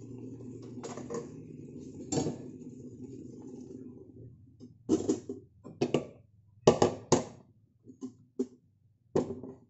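A stainless steel cooking pot and its domed metal lid clank and knock sharply, about nine times, as the pot is lifted and shifted on a gas stove. A steady low hum runs underneath and stops about four and a half seconds in.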